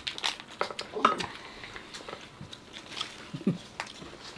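People chewing and biting into fresh rice-paper spring rolls (gỏi cuốn) filled with shrimp, pork and raw vegetables: irregular wet mouth clicks and light crunches, with a short vocal sound or two.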